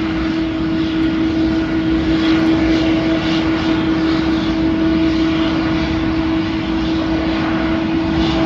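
Jet engines of a wide-body twin-engine airliner running steadily at low power on the runway: a constant whine over a broad rumble.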